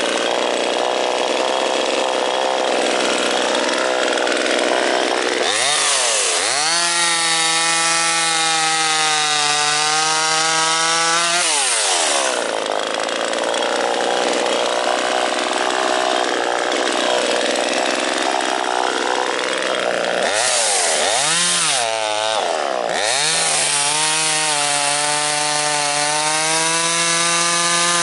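HAIGE HG-TM32500A 25.4cc two-stroke chainsaw cutting logs. The engine runs at high revs, its tone blurring under the noise of the chain in the wood during cuts and steadying between them; twice its pitch dips and climbs back as the throttle is let off and opened again.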